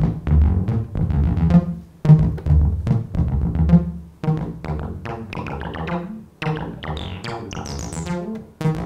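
Roland TB-303 bass line synthesizer playing a repeating sequenced bass line, its notes cut short by a low decay setting so the line sounds half-chopped. In the second half the filter is opened with the knobs, and its squelchy resonant sweeps climb much higher and brighter.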